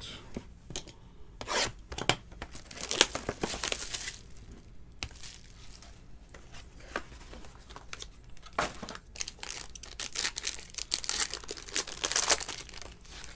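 Packaging of a 2020 Topps Tier One baseball box being torn open by hand: crinkling and tearing of wrap and a silver foil pack wrapper, in several bursts, the longest near the end.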